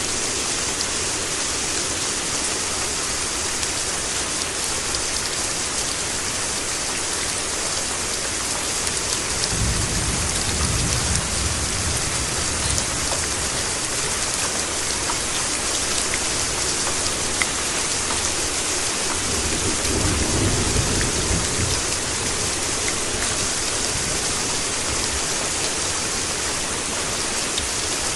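Steady heavy rain with an even hiss, and two low rumbles of thunder a few seconds long, about ten seconds and about twenty seconds in.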